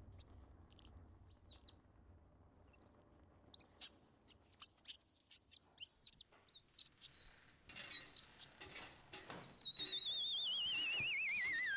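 Small caged bird chirping, then warbling in loud high trills. It runs into a long, high, wavering whistle that near the end starts sliding steeply down in pitch, like a recording slowing to a stop.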